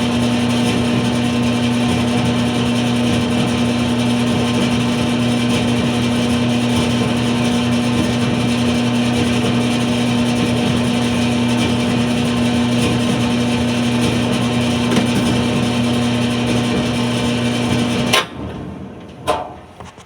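Dryer running with a steady low hum and whir. It cuts off abruptly about 18 seconds in, followed by a few sharp knocks.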